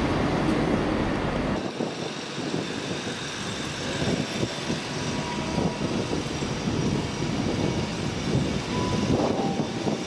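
A train moving on the tracks at a station, its wheels rumbling on the rails; the deep part of the rumble drops away suddenly about a second and a half in.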